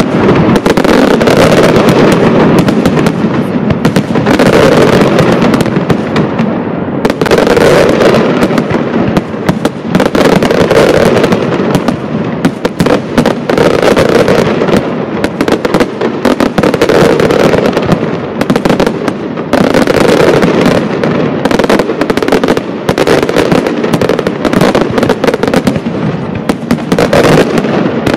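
Loud, continuous barrage of a Pirotecnia Caballer FX castillo fireworks display: aerial shells and ground effects bursting in rapid, overlapping bangs and crackle with no let-up.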